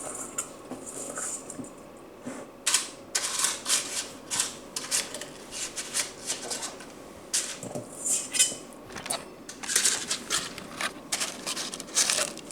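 Dry cornflakes rustling and crackling in a bowl as they are mixed, a quick irregular run of crisp clicks that starts about three seconds in.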